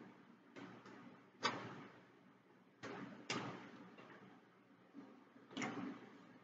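Light knocks and clatters of takeout containers and utensils being handled, five or so spaced irregularly over several seconds.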